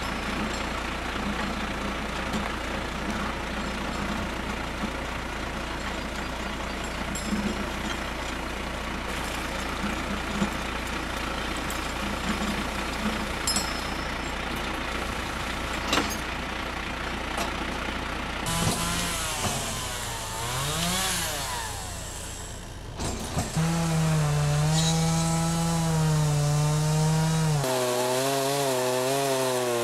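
Tractor engine running steadily, driving a PTO skidding winch that reels a log in on its cable. Later a two-stroke chainsaw runs at high revs, its pitch rising and falling with the throttle, with a few abrupt changes in the sound.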